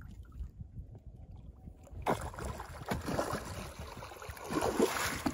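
A large blue catfish thrashing and splashing at the water's surface as it is netted beside the boat. The choppy splashing starts about two seconds in and is loudest near the end.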